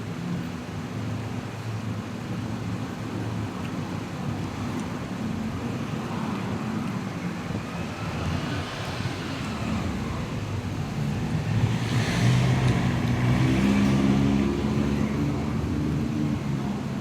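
Road traffic: a steady engine hum with a vehicle passing close by, growing louder to a peak about twelve seconds in, then easing off.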